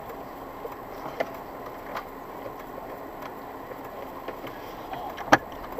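Steady road and engine noise of a moving car heard from inside, with scattered small clicks and one sharp knock about five seconds in.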